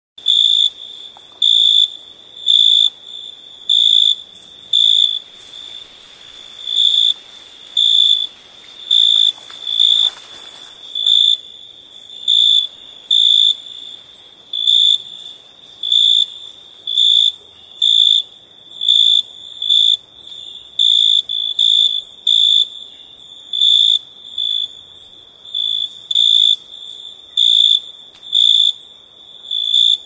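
A cricket chirping loudly and evenly, one high-pitched chirp about every second, over a fainter steady trill at the same pitch.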